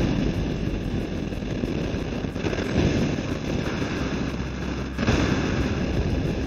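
Wind rush and road noise of a moving pickup truck heard through its open side window: a steady, loud rushing.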